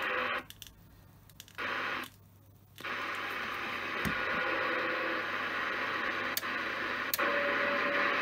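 President Zachary T CB radio's speaker hissing with receiver static. The static cuts out twice briefly in the first few seconds. Two sharp clicks come about six and seven seconds in as the channel selector is turned from channel 13 down to 11.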